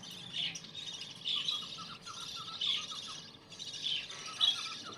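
Budgerigars chirping and chattering in short bursts, about one burst a second.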